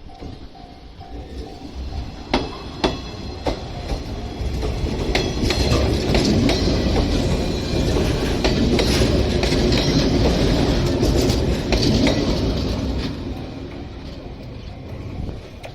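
Train passing over a level crossing: a few sharp wheel clacks over rail joints, then a steady rumble of the train going by that swells from about five seconds in and fades near the end. A level-crossing warning bell rings at the start and is drowned out by the train.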